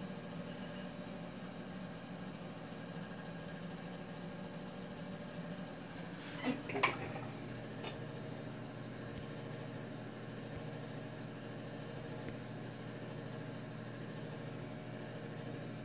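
Steady low hum of background machinery or room noise. About six and a half seconds in come a short rustle and a sharp click.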